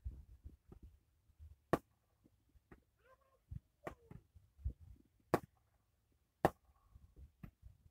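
Scattered sharp firecracker pops: four louder cracks roughly a second apart, with a couple of fainter pops between them.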